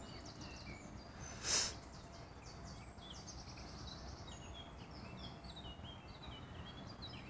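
A songbird singing a long run of quick, high chirps and short trills over faint open-air background noise, with one brief rushing noise about a second and a half in.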